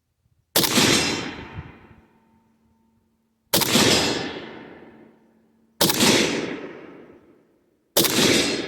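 Four rifle shots fired one at a time, two to three seconds apart, each sharp crack trailing off in a long echo.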